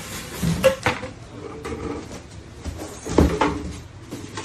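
Handling knocks and clunks: two sharp knocks about a second in and a heavier thud about three seconds in, with rustling in between.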